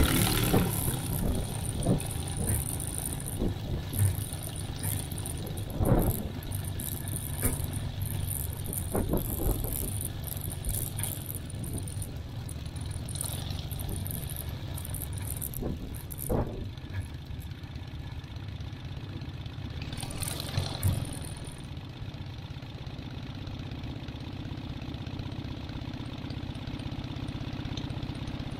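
Minimax 1100R ultralight's engine idling steadily with its propeller turning while the aircraft taxis, with a few sharp knocks and rattles over it.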